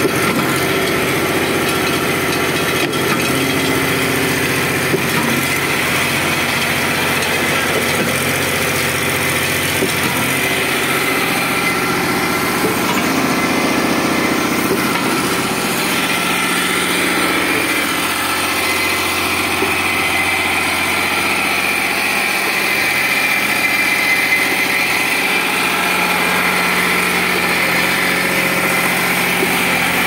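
Engine running steadily while an MCM MCP 40HD single-cylinder gate-valve concrete pump works, with a transit mixer truck running alongside.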